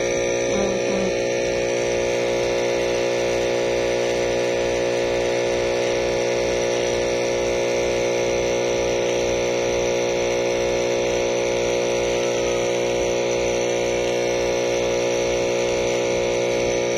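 A steady, unchanging hum made of several held tones, over an even low pulse.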